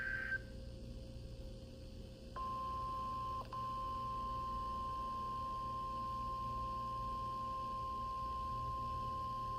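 A weather radio's speaker playing the NOAA Weather Radio weekly test signal. The end of a steady data-burst tone (the SAME header) stops in the first half-second, followed by a couple of seconds of faint static. Then a single steady warning alarm tone begins, drops out briefly once, and holds on.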